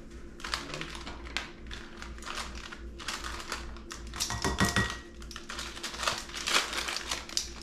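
Rapid light clicking and clattering of a set of plastic measuring spoons being handled, with a louder flurry of clicks about halfway through.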